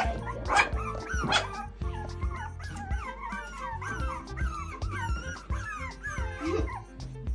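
Several puppies whimpering and yipping in many short, wavering, overlapping high calls, over background music with a steady beat.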